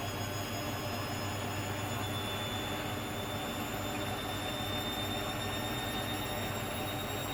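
Hoover Dynamic Next washing machine running with its drum spinning: a steady hum under a high motor whine whose pitch creeps slowly upward.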